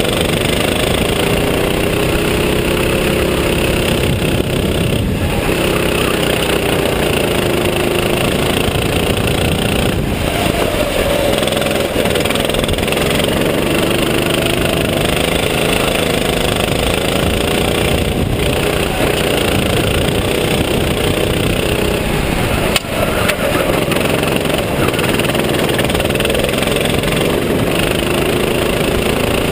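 Racing kart engine running hard from on board, its pitch rising and falling over and over as the throttle is opened and closed through a series of corners. A single short knock about three-quarters of the way through.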